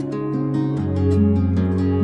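Background music of plucked guitar notes over a held bass note, which steps down to a lower note just before a second in.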